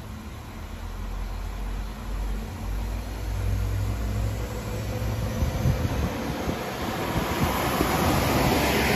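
Arriva LINT diesel railcar moving along the station platform: a low diesel engine rumble, then wheel and rail noise that grows louder toward the end as the train passes close by.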